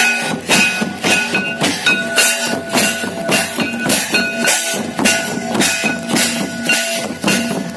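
Santali folk drumming on tamak' kettle drums and tumdak' barrel drums, beating a steady rhythm with a high melody note held over the drums.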